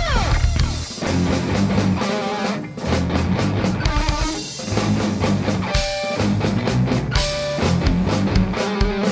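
Rock band playing: guitar chords over a steady drum-kit beat.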